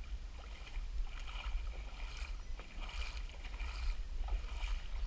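Steady low rumble of wind on the microphone, with only faint, scattered background sounds and no clear event.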